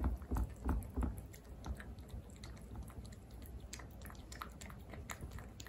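A cat chewing wet food from a plastic bowl: a quick run of small wet smacks and clicks, louder in the first second or so and softer after that.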